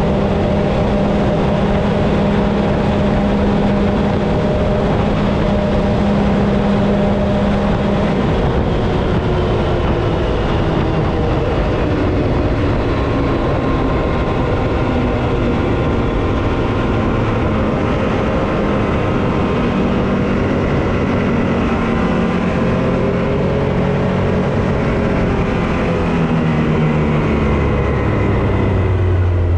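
Can-Am Maverick X3 Turbo RR's turbocharged three-cylinder engine running hard at a steady high pitch during a top-speed run, over loud road and wind noise. In the last few seconds the pitch falls as it slows down.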